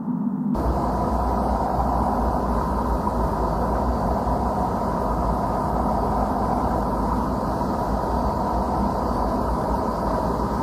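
A sustained ringing tone gives way abruptly, about half a second in, to a steady low rumble of background noise with a hiss above it.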